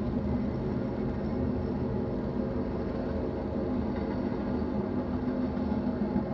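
Intermodal freight train's double-stack container cars rolling past, a steady, unbroken noise with a constant low hum.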